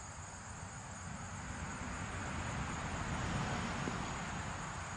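Steady low rumble of outdoor background noise with no distinct events, growing slightly louder over the few seconds.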